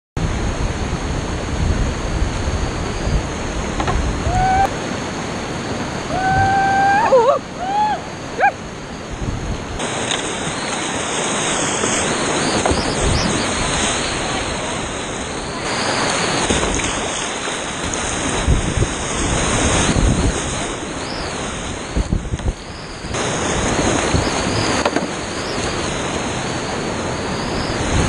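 River rapids rushing and splashing close around a whitewater kayak, with water and wind buffeting the microphone. A few short, high, gliding calls from a voice come between about 4 and 8 seconds in.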